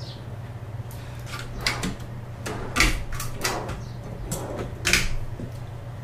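Handling noises: a run of knocks and clatters, the loudest about three seconds in and again near the end, over a steady low hum.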